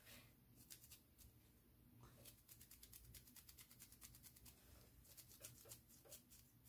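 Faint, rapid scratchy strokes of a large flat dry brush rubbed back and forth over the ridged resin armour of a painted model, dry-brushing a metallic silver onto the edges. The strokes come thick and fast from about two seconds in.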